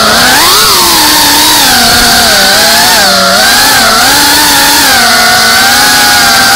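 GEPRC FPV drone's brushless motors and propellers whining loudly, heard close from the onboard camera. The pitch wavers up and down with throttle changes.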